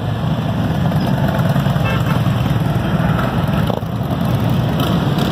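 A group of police motorcycles riding past at low speed, their engines running steadily with a dense, low rumble.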